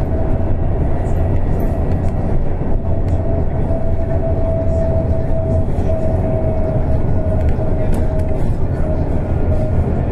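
Cabin of a moving trolleybus: a steady low rumble of the ride, with a steady whine from the electric drive held at one pitch.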